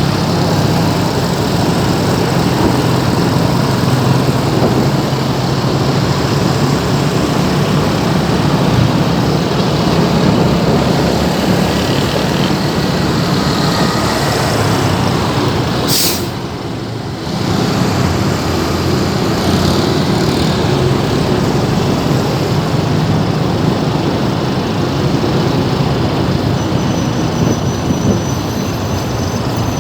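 Heavy road traffic in a jam: engines of trucks and other vehicles running with a steady low hum and road noise. About halfway through comes a brief high hiss, and the noise drops for a moment before resuming.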